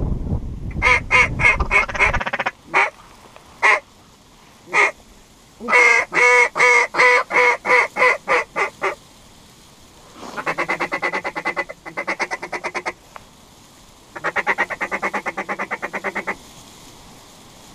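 A hunter's mallard duck call blown in runs of loud quacks, about five a second, with a few single quacks between runs. It then breaks into two bursts of rapid chattering notes, a feed chuckle, to coax ducks in. A low rumble, like wind on the microphone, fills the first two seconds.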